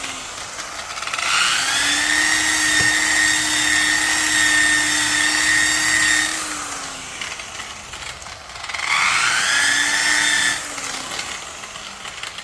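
Variable-speed electric buffing tool, set on speed 3, polishing a wet-sanded plastic fog light lens. It spins up with a rising whine, runs steadily for about five seconds and winds down, then spins up again for a shorter burst of under two seconds and winds down.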